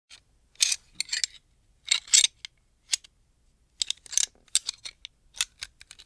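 Gun parts being handled: quick clusters of sharp mechanical clicks and clacks, several bursts with short pauses between them.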